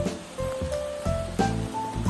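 Background music: an instrumental track of held melodic notes over a steady beat, with a percussive hit about every 0.7 seconds.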